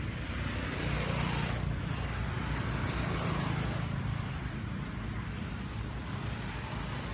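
Steady low outdoor background rumble, with soft hissing swells about one second and three seconds in.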